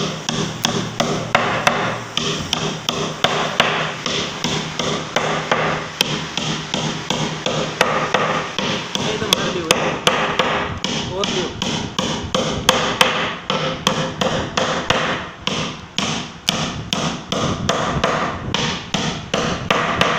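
Steel-headed hammer driving nails into a wooden board, a steady run of sharp blows about two to three a second, coming a little quicker near the end.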